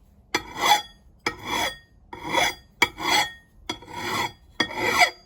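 A hand file drawn over the edge of a clamped vintage axe head to sharpen it: about six rasping strokes, roughly one a second, each with a faint metallic ring from the steel head.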